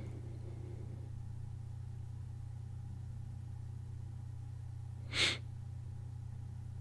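A man's single short, audible breath about five seconds in, over a low steady hum from the recording.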